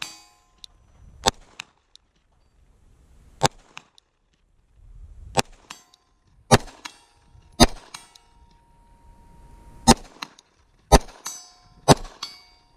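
About eight 9mm pistol shots from a Glock 19 Gen 5, fired slowly one to two seconds apart at long-range steel. After several shots a struck steel plate rings on in a steady tone.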